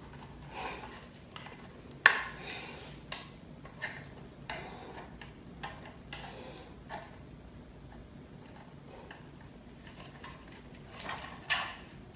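Irregular clicks and light knocks of a ring light and its stand being handled and adjusted, the sharpest about two seconds in.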